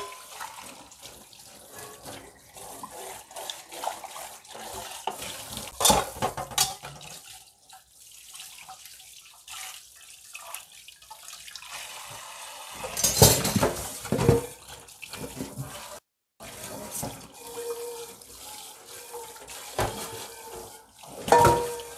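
Kitchen tap running into a stainless steel sink while dishes are washed by hand: a steel bowl is rinsed, then a pan is scrubbed with a sponge under the stream. Metal knocks against the sink now and then, loudest a little past halfway.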